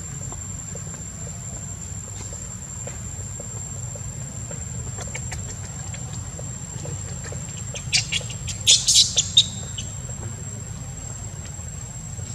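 Steady high insect buzz over a low rumble, with light rustling and small clicks in dry leaf litter; about eight seconds in comes a quick run of about six sharp, high-pitched squeaks.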